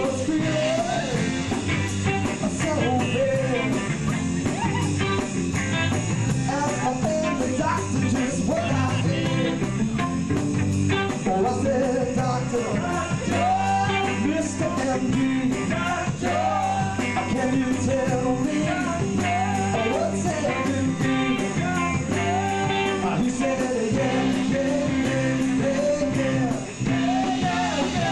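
Live rock band playing: electric guitars, bass and a drum kit, with a steady cymbal beat.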